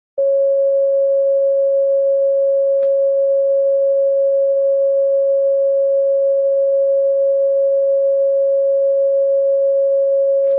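Steady CW side tone from a Flex transceiver: one continuous, unwavering mid-pitched tone, the key held down so a Morse decoder can be tuned to it. Two faint clicks come through it, about three seconds in and near the end.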